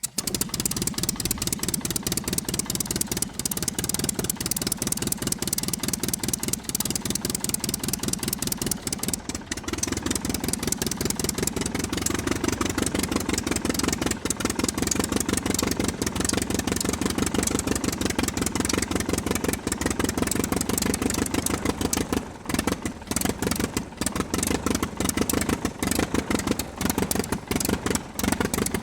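Aircraft engine running steadily, with rapid, even firing pulses. Its note shifts about ten seconds in.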